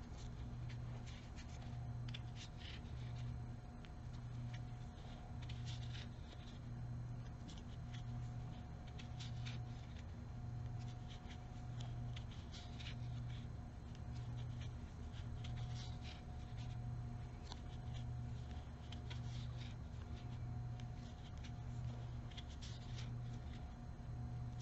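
Crochet hook and yarn being worked: soft, scattered ticks and scratches. Under them runs a low hum that swells and fades about once a second.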